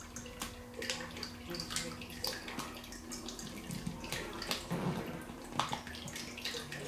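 Hand rubbing and pressing a paper adhesive mounting template flat against a wall: irregular scratchy rustling with small taps.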